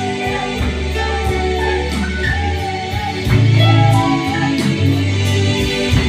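Gospel worship music: a voice singing a wavering melody over deep, sustained bass notes and a steady beat.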